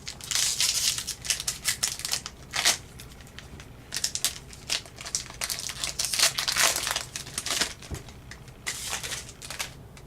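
A hockey card pack's wrapper being torn open and handled, an irregular run of sharp, crackly rustles with short gaps between them.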